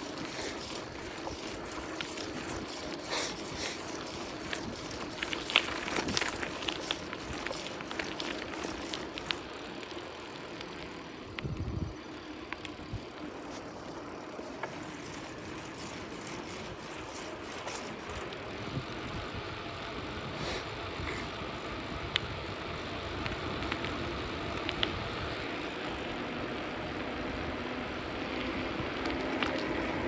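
Bicycle riding on asphalt: a steady rush of tyre and air noise with frequent rattles and clicks from the bike over bumps, thickest in the first ten seconds, and a brief low thump a little before halfway.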